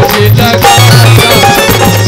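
Live devotional bhajan band playing an instrumental passage: an electronic keyboard melody over a steady hand-drum beat.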